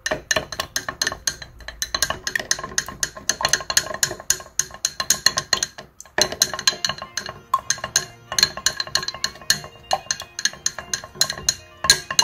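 Wooden stirring stick clinking rapidly against the sides of a small glass beaker, the glass ringing at the same few pitches with each stroke, as salicylic acid is stirred into castor oil to dissolve it. The stirring pauses briefly about halfway through.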